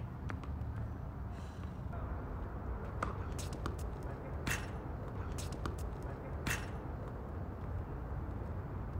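Tennis ball struck by rackets and bouncing on a hard court during a rally: a series of sharp pops, the loudest about four and a half and six and a half seconds in, over a steady low hum.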